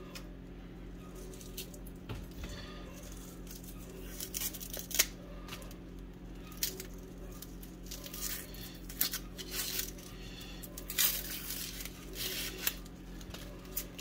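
Papery skin being peeled off a red onion by hand: irregular dry crackles and small tearing sounds, with a sharper snap about five seconds in and a cluster of crackles around eleven seconds, over a steady low hum.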